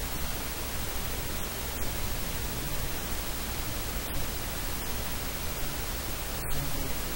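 Steady static hiss spread evenly from low to high pitches, with no speech to be heard.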